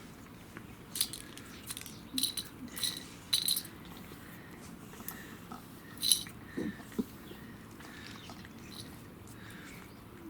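A cat eating dry food: uneven sharp clicks and clinks of kibble being bitten and knocked against the bowl, coming in spurts, the loudest about six seconds in.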